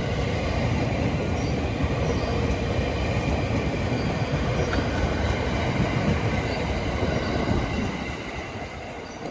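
Electric commuter train rolling past at low speed on the Takasaki Line, a steady rumble of wheels on rail with a faint high ringing above it, fading away near the end. It is running slower than usual on a test run to check the track for damage.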